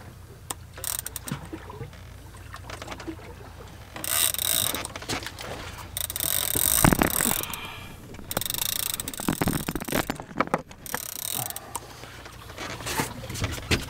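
Penn 50 International big-game reel being cranked against a hooked tuna, its gears clicking in quick runs, with several bursts of hissing noise a few seconds long.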